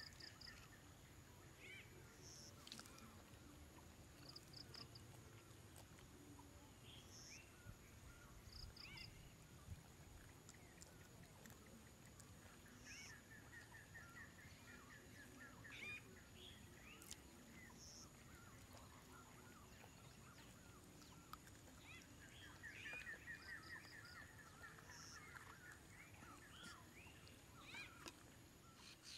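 Faint forest ambience: several birds calling throughout, with short repeated chirps and a few rapid trills, over a steady high-pitched tone.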